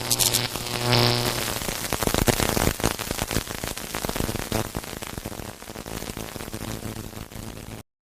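Studio audience applauding with some cheering, strongest about a second in and gradually dying down, then cut off abruptly near the end.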